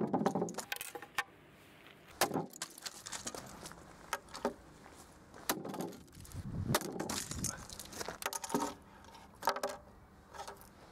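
Hammer blows smashing a Canon MV630i Mini DV camcorder: a string of sharp cracks a second or two apart, its plastic and metal casing breaking and small pieces clattering on the table.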